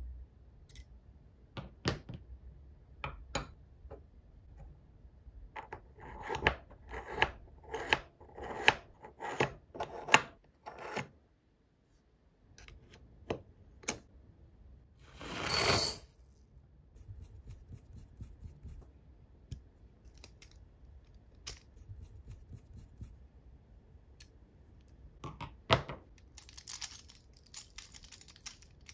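Small metal parts of a full-metal turbofan engine model kit clicking and clinking as they are fitted by hand with a screwdriver and pliers: a quick run of clicks, then one short bright metallic ring about halfway through, and light metallic jingling near the end.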